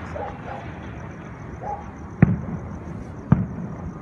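Aerial firework shells bursting in the distance: two sharp booms about a second apart, each trailing off in a rolling echo.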